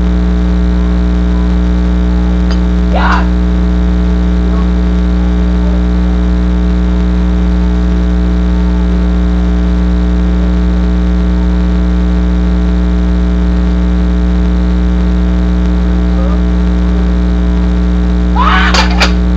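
Loud, steady electrical hum with a buzz of many evenly spaced overtones, unchanging throughout, that swamps the room sound. A short sound about three seconds in and brief voices near the end.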